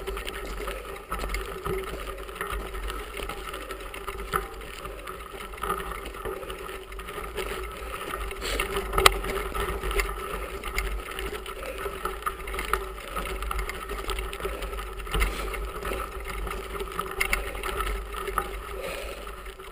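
Bicycle rolling along a gravel road, heard from a handlebar-mounted camera: steady tyre crunch and rattle with scattered sharp knocks and a steady low rumble.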